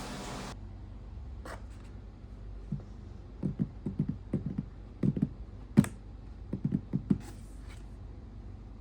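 A steady hiss cuts off half a second in. It is followed by a scattered run of light taps and clicks from handling objects, some in quick clusters, with one sharper click near the middle.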